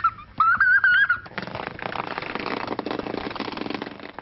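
A toddler squealing with high-pitched laughter in two bursts, followed by a rough, hissing noise for the next few seconds.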